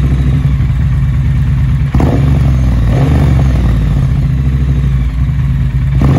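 Triumph Bonneville T120's parallel-twin engine idling through a Remus muffler with its baffle inserts removed, with a short blip of the throttle about two seconds in.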